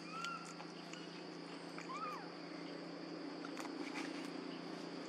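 A few short whistle-like animal calls, each rising then falling, one just after the start and another about two seconds in, over a steady high drone and a low hum.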